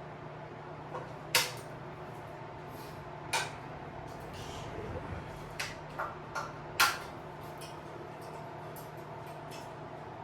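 Sharp metal clanks and knocks as tools and bike parts are handled during a teardown: about six separate hits, the loudest about a second and a half in and again near the middle, over a steady low hum.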